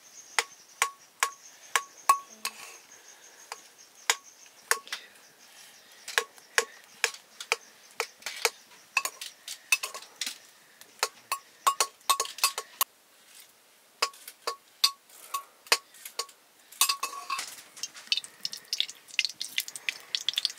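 Steel ladle clinking against the rim of a metal pot while cooked rice is stirred and scooped: dozens of light clinks, each with a short ring, coming at an uneven pace and bunching into quick runs.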